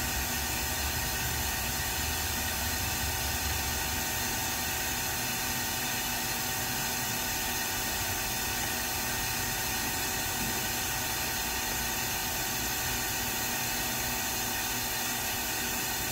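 Ganesh Cyclone 32CS CNC turning center running without cutting: a steady hum and hiss with several steady tones. A low rumble dies away about four seconds in.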